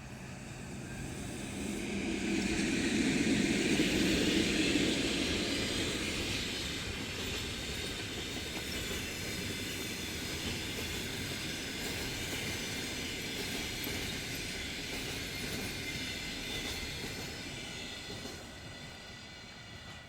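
A train passing along the track. It builds over the first couple of seconds, is loudest about three to five seconds in, runs on steadily with thin high tones above the wheel noise, and fades near the end.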